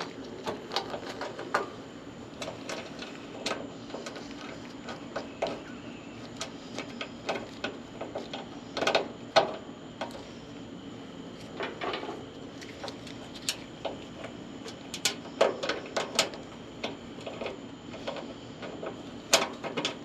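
Irregular clicks and small plastic and metal knocks of hands working on a dryer door switch and its wire connectors, with a steady low hum underneath.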